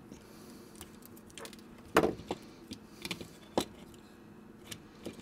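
Flush cutters snipping a plastic cable tie, followed by sharp clicks and small knocks as wires and plastic housing parts are handled. The loudest click comes about two seconds in, with a few lighter ones after it.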